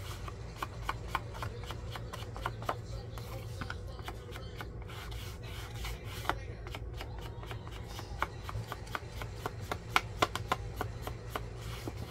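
Paper edges being rubbed and dabbed with ink to distress them: a continual run of soft scuffs and small taps, a few sharper ones near the end, over a steady low hum.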